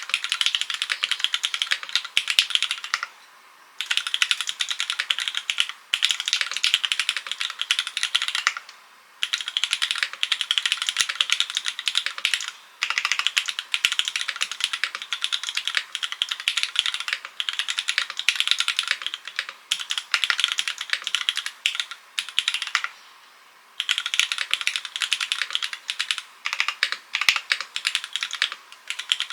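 Fast typing on a Transition TKL mechanical keyboard with Cherry MX Black linear switches, a top-mounted carbon plate, no foam inside, and ABS/PBT keycaps: a dense clatter of key strikes. There are short pauses about three, nine and twenty-three seconds in.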